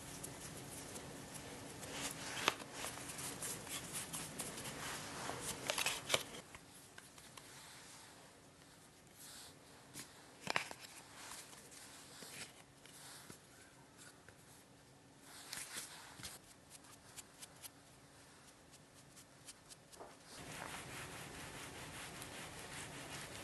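Hands shaping a soft mochi rice-cake ball in a powder-dusted metal tray: quiet crackly rubbing and patting in clusters, with one sharp tap about ten seconds in and a faint steady hiss near the end.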